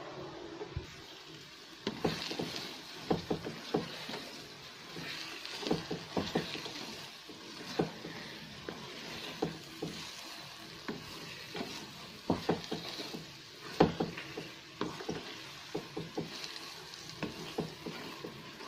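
Wooden spatula stirring and scraping thick, sticky biko (glutinous rice cooked in sweetened coconut milk) in a nonstick pan, with irregular knocks and scrapes against the pan over a light sizzle. The mixture has already thickened and is being stirred constantly to dry it out without burning on the bottom.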